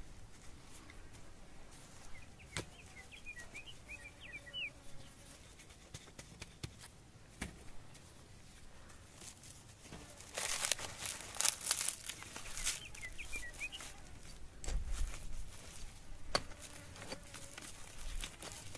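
Soil being scraped and packed by hand into a wooden adobe-brick mould, with a few light knocks of wood and dirt. About ten seconds in comes a louder rasping scrape lasting two or three seconds.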